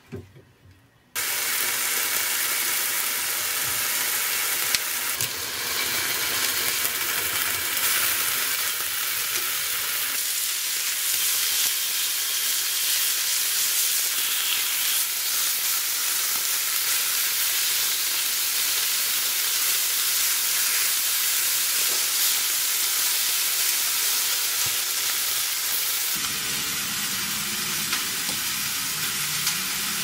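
Marbled beef steaks sizzling steadily as they fry in a hot frying pan, the sizzle starting abruptly about a second in.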